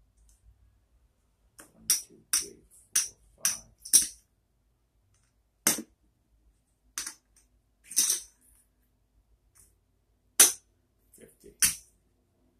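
Poker chips clacking as they are picked up, stacked and set down on a felt table: about a dozen short, sharp clicks at uneven intervals, several in quick succession in the first half.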